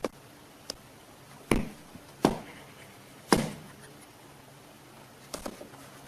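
A series of sharp knocks at uneven intervals: three loud ones in the first half, then a quick cluster of lighter ones near the end.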